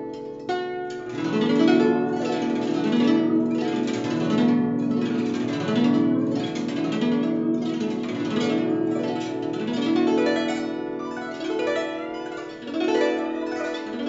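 Guzheng played solo, plucked with finger picks: a steady stream of ringing notes with sweeping runs across the strings.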